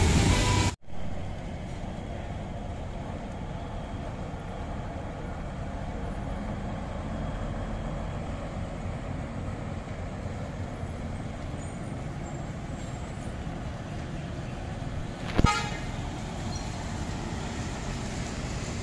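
Steady low rumble of bus and motorcycle engines, with one short vehicle horn toot about fifteen seconds in.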